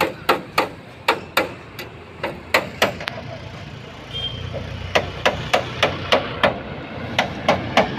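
Repeated sharp knocks, two to three a second, going on steadily. A low rumble joins about halfway through.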